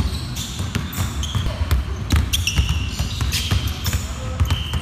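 Several basketballs being dribbled hard on a hardwood gym floor, a quick run of overlapping bounces, with short high sneaker squeaks from players cutting and changing direction.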